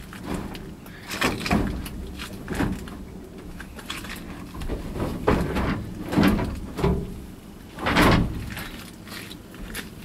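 Wooden pallets and boards being loaded into a truck bed: a series of wooden knocks, clatters and scrapes, the loudest thud about eight seconds in, heard from inside the truck cab.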